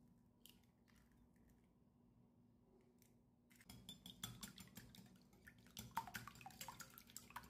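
Wire whisk beating raw eggs in a bowl by hand: a fast run of clinks and scrapes of the wires against the bowl, starting about halfway through, after a few faint clicks as an egg is broken open.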